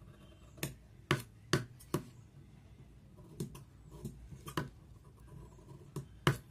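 Scissors snipping through newspaper while a blouse pattern is cut out: a series of short, sharp snips in uneven runs, several in quick succession early and a few more later.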